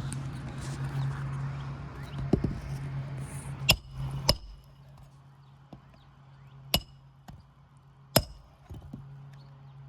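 Hammer striking a roof snake to drive roofing nails in under a lifted asphalt shingle: four sharp metallic strikes with a short ringing ping, two close together a little past a third of the way in and two more later, with a few softer knocks between. A steady low hum runs underneath and drops away about halfway through.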